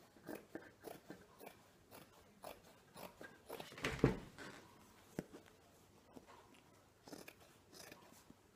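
Scissors cutting through heavy brocade upholstery fabric: a run of short snips, about two a second, with one louder thump about four seconds in.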